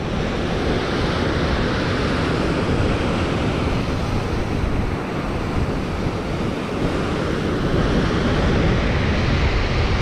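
Wind rushing and buffeting over the microphone, a steady loud rumble and hiss.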